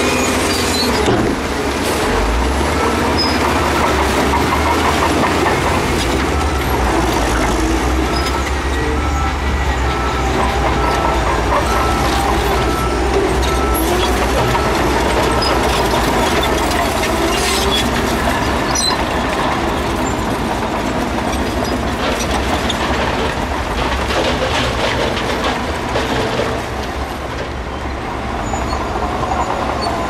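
Heavy earthmoving machinery at work: diesel engines running steadily under a continual clatter of metal clanks and knocks.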